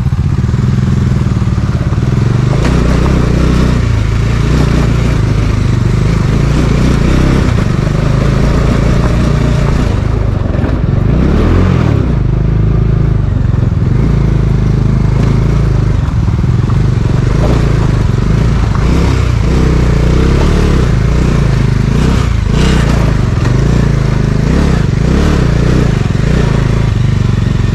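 Motorcycle engine running as the bike is ridden over a rough, rocky track, loud and continuous.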